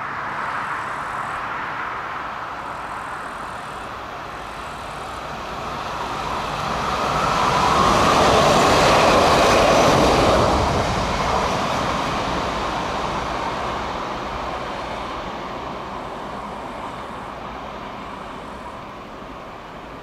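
A train passing by: its rumble grows louder to a peak about nine seconds in, then slowly fades as it moves away.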